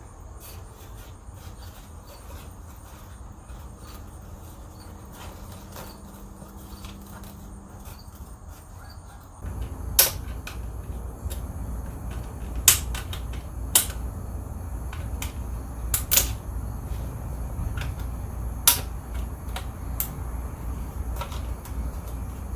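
Sharp plastic clicks and snaps, about six of them at irregular intervals through the second half, over a low rumble: push-in plastic clips being pried up out of the shift-boot trim.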